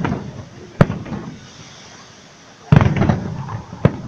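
Aerial firework shells bursting. There is a sharp bang about a second in, then a louder cluster of bangs with a rumbling echo a little before three seconds, and another single sharp bang near the end.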